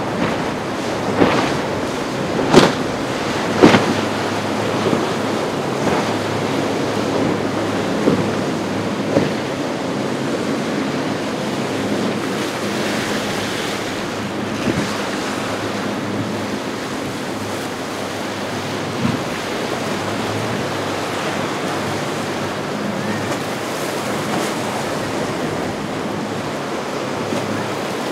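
Ocean surf and waves washing steadily, with wind rushing over the microphone. There are several sharp knocks in the first nine seconds, the loudest a few seconds in.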